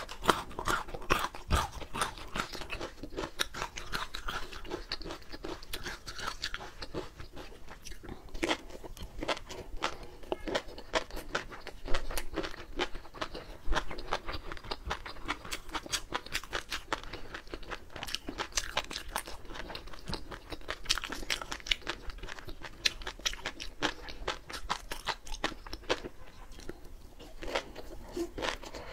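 Close-miked chewing of raw shrimp coated in flying fish roe: a dense, steady run of small crunching clicks as the roe eggs burst between the teeth.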